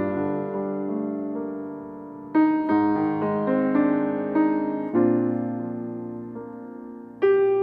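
Piano music: slow chords struck about every two and a half seconds, each left to ring and fade before the next.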